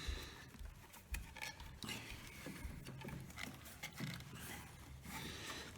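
Faint, scattered clicks, knocks and scrapes of metal scooter transmission parts being worked into place by hand, as the clutch and clutch bell are pushed over the variator.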